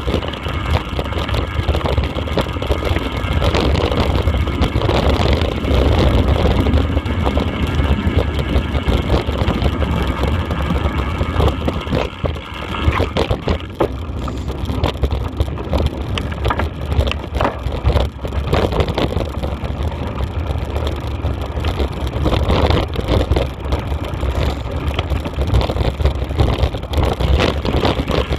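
Vehicle engine running steadily while riding a bumpy dirt track, with a heavy rumble of wind and jolts on the microphone and occasional knocks.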